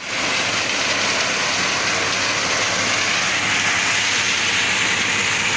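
Deutz-Fahr tractor running, a steady rushing hiss over a faint, even low engine hum.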